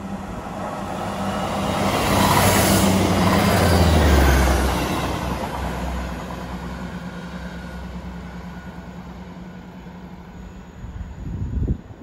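Class 158 diesel multiple unit passing through the station. Its engine drone and the rumble of wheels on the rails swell to a peak a few seconds in, then fade as it draws away. A short low thump comes near the end.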